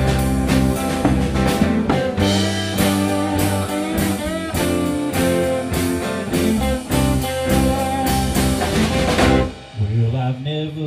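Live rock band playing an instrumental break: an electric guitar lead with string bends over electric bass and drum kit. Near the end the drums stop and the music drops to a quieter passage of guitars and bass.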